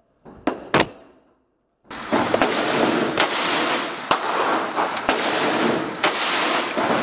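Gunshots from a 7.62x39 AR-15 at an indoor range: two sharp shots close together in the first second. Then, over a loud steady noise, a slow string of about six shots roughly one a second.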